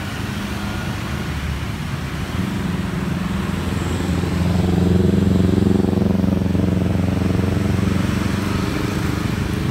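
A motor vehicle's engine running close by, steady in pitch, growing louder a few seconds in and easing slightly near the end.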